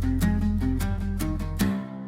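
Closing bars of an instrumental song outro: guitar-led band music with a steady beat of about five hits a second over held bass. Near the end the beat stops on a final chord that rings out and fades.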